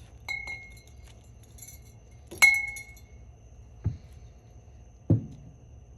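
Glass bottles clinking together twice with a short ring, the second clink the loudest, followed by two dull thumps as they are handled as weights on the washer's suspension rod.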